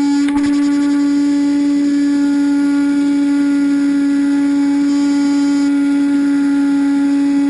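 Electric motor and propeller of an AXN Floater-Jet RC plane running at steady throttle: a loud whine that holds one pitch.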